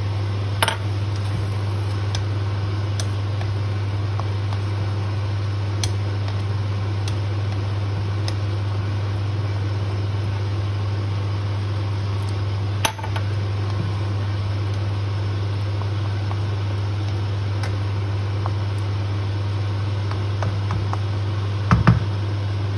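Steady low mechanical hum with a hiss over it, broken by a few light knocks of a wooden spatula and a drinking glass against a wok: one about a second in, one about halfway, and a double knock near the end.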